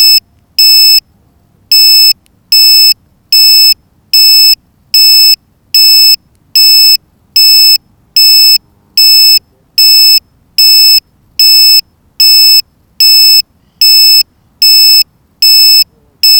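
Loud electronic beeper sounding a steady series of short, high-pitched beeps, a little over one a second, with one longer gap about a second in.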